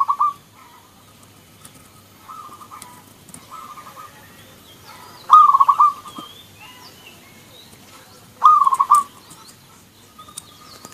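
Zebra dove (perkutut) song: three loud phrases of rapid staccato cooing notes, about a second each, near the start, midway and near the end, with fainter phrases of the same cooing in between.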